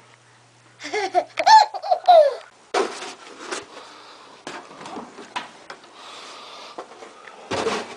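A toddler laughing and squealing in short, high-pitched calls about a second in, followed by several sharp knocks and clatter.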